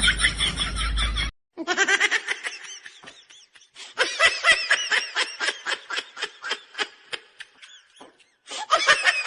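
High-pitched laughter in quick repeated bursts, broken by a few short, sudden silent gaps.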